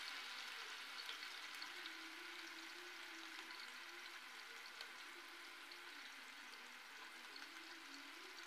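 Prawn vadas frying in hot coconut oil in a pan: a faint, steady sizzle with small scattered crackles.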